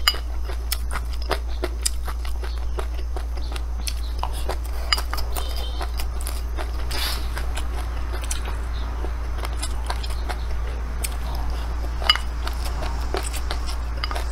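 Close-miked eating: a wooden spoon scraping and tapping a ceramic bowl of fried rice, and the mouth chewing, heard as a scatter of small irregular clicks over a steady low hum.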